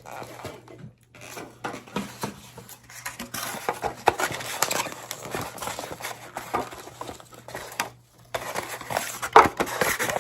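Close-miked eating sounds: biting into and chewing a crispy garlic parmesan chicken wing, with irregular crunches and clicks from handling the food.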